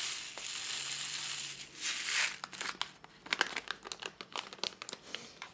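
Size 10 rhinestones pouring from a small plastic cup onto a rhinestone template, a steady rattling hiss for about two seconds, followed by scattered light clicks.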